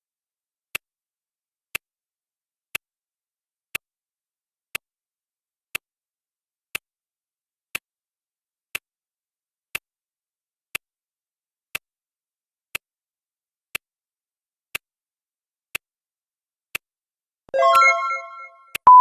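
Clock ticking sound from a countdown timer, one tick each second. Near the end a chime rings and fades, marking the final minute running out. Right at the end a loud steady beep sounds, signalling that time is up.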